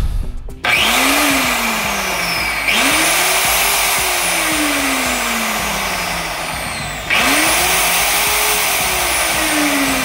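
DeWalt 7-inch angle grinder test-run on freshly replaced bearings, switched on three times. Each time its whine rises as it spins up, then falls away as it coasts down. It now sounds smoother than with the old, noisy bearings.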